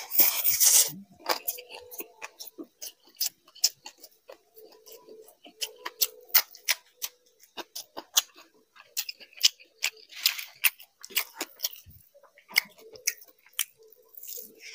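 Close-miked eating: chewing and lip smacking on a hand-fed mouthful of fried rice and fried fish, heard as a fast, irregular run of sharp wet clicks. There are a few louder bursts at the start and again about ten seconds in.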